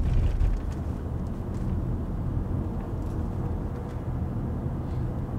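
A car being driven, heard from inside the cabin: a steady low rumble of engine and road noise, slightly louder in the first half-second.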